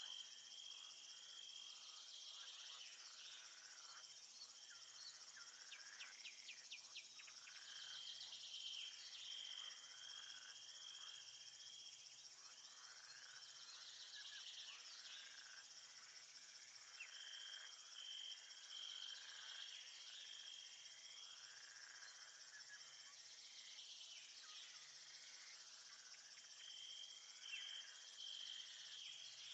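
Faint nature ambience of crickets and other insects chirping steadily. A shrill cricket trill comes and goes, laid over many short, rapid chirps.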